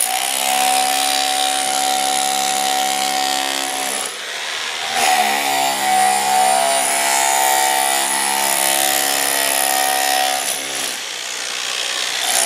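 Power tool running with a steady whine over a harsh hiss. Its pitch dips and glides back up about four seconds in, and it eases off briefly near the end.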